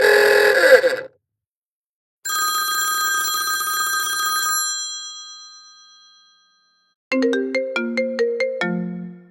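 Apple iPadOS 26 ringtones played one after another. A short dense burst of tone ends about a second in. A bell-like chime starts about two seconds in and rings out, fading slowly. A quick melody of plucked notes starts about seven seconds in and stops just before the end.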